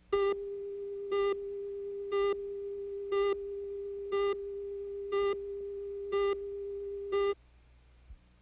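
Broadcast tape leader line-up tone: a steady mid-pitched tone with a sharper, buzzier beep once a second, eight beeps, cutting off about seven seconds in.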